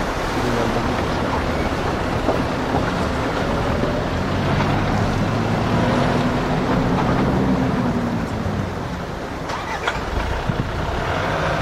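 4x4 vehicle's engine running as it crawls over a rough, rocky dirt track, heard from inside the cabin; the engine pitch rises and falls around the middle. A few sharp knocks and jolts come near the end.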